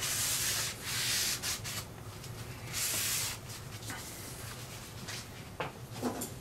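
A rag rubbing along the top mating surface of a lathe's headstock gearbox, cleaning it for sealant: three wiping strokes in the first three and a half seconds, then only a few faint knocks.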